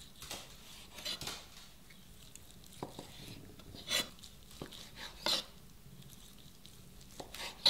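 Knife knocking on a cutting board and dishes clinking while boiled horse meat is cut into pieces: irregular sharp taps and clinks, the loudest right at the end.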